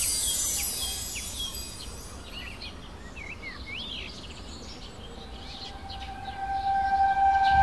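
Small birds chirping over a low outdoor rumble, opening with a falling swish of hiss. Near the end a steady held tone swells in, leading into music.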